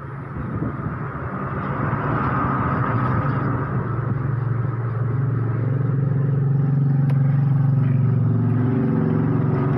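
An engine running steadily, a low hum with a hiss above it, growing louder over the first two seconds and then holding.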